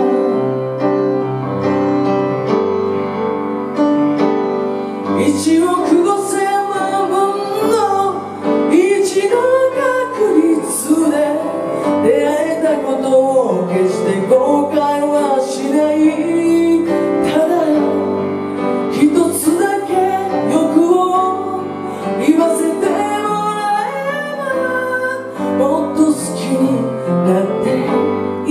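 A woman singing a slow ballad into a microphone with piano accompaniment, performed live.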